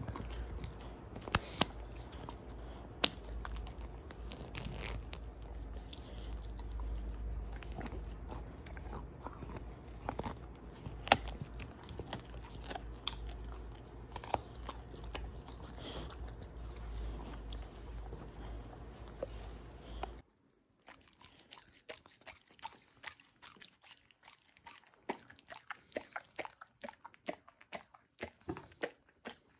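A large husky chewing and crunching on a chunk of raw meat: irregular sharp crunches and bites, one after another. About two-thirds of the way through, a steady low hum behind it stops abruptly, and the chewing goes on sparser and quieter.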